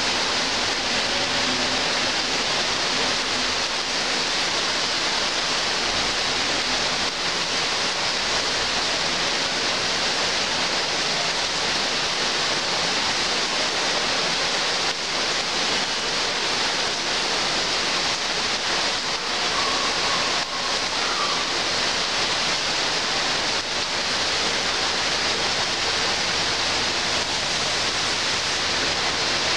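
Heavy rain pouring steadily on tree foliage: a dense, even hiss.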